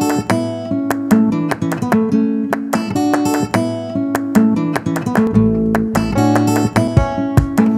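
Background music: acoustic guitar playing quick plucked notes and strums, with a deeper held bass part coming in about five seconds in.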